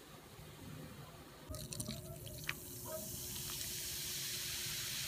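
Freshly poured Coca-Cola fizzing over ice in a glass mug. About a second and a half in come a few crackles and pops, then the fizzing hiss builds and holds steady.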